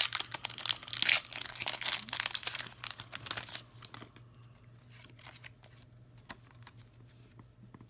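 Foil Pokémon booster-pack wrapper crinkling and tearing as the pack is opened, dense crackle for the first few seconds, then thinning to scattered light rustles and ticks.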